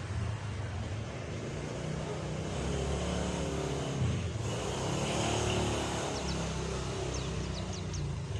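Steady hiss of heavy rain with a low rumble that swells around the middle and eases off again. Near the end, a few short, thin, high chirps from a pleci (white-eye) come through.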